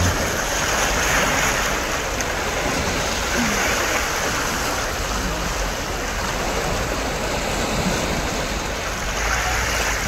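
Steady rushing wash of sea water lapping against the shore and breakwater.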